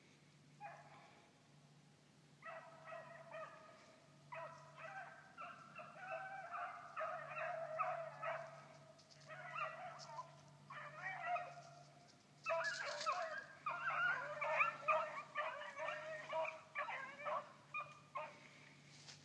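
A pack of beagles baying while running a rabbit track, several hounds' voices overlapping. The chorus builds about two seconds in and is loudest in the last third, then tails off near the end.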